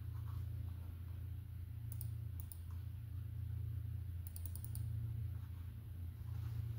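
A few light clicks at a computer as the on-screen diagram is navigated and zoomed: two about two seconds in, then a quick run of about five around four and a half seconds. A steady low hum runs underneath.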